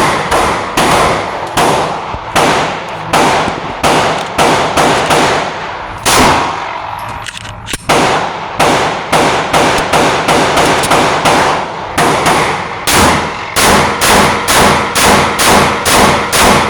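Glock 43X 9mm pistol fired in rapid succession, about two shots a second, with a pause of a couple of seconds near the middle before the firing resumes.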